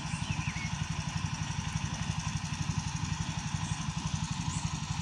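A small engine running steadily at a low idle, a fast even chugging beat that does not change.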